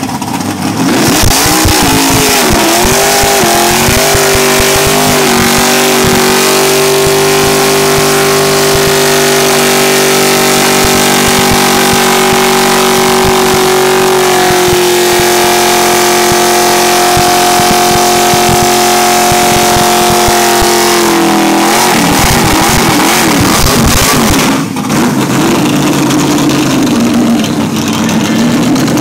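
Ford Mustang engine revved hard during a burnout, its rear tyres spinning on the tarmac. The revs rise and wobble over the first few seconds, then hold at a steady high pitch with tyre noise for about fifteen seconds before dropping off. The engine runs at lower revs near the end.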